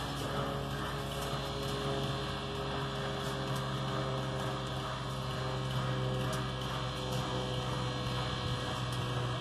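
Baldwin 2-8-0 steam locomotive standing with steam up, giving a steady low hum with faint ticks over it.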